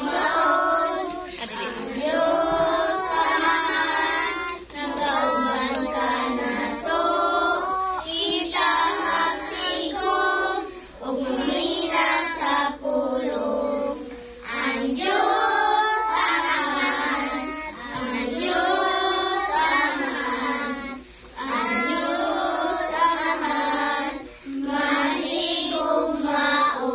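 A group of young children singing a worship song together, in sung phrases of a few seconds each with short pauses for breath between them.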